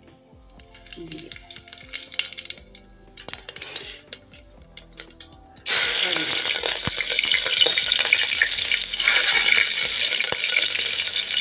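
Seeds in hot oil in an aluminium pressure cooker, crackling and popping in scattered bursts. About halfway through, a green ingredient is added to the oil, and it breaks into a loud, steady sizzle that keeps going.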